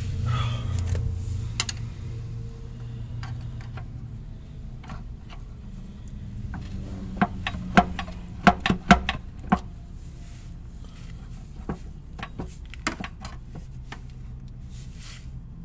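Hand tools clicking and knocking on metal under the car as the oil pan is worked loose, with a quick cluster of sharp clicks about halfway through. A low hum runs under the first few seconds.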